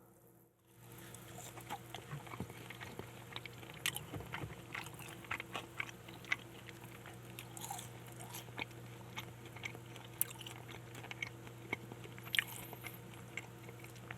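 Close-miked biting and chewing of a crispy fried-chicken-thigh burger (Mom's Touch Thigh Burger): many small crunches and crackles, over a steady low hum.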